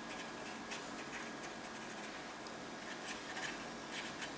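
Paintbrush dabbing and scratching on a scale model as oil paint is blended, heard as faint, irregular light ticks and scratches.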